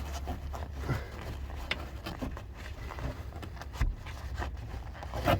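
Scattered light scrapes, rubs and a few sharp knocks from hand-cleaning around the sump drain plug under a car, over a steady low hum.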